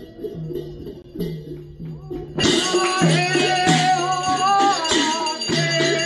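Live ritual music: a drum beaten in a steady rhythm, joined about two and a half seconds in by louder jingling cymbals and a singing voice holding gliding notes.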